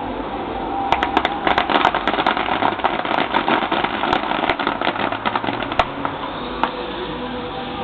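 Fireworks crackling: a dense run of rapid small pops starts about a second in and thins out to a few scattered cracks after about six seconds, over steady background noise.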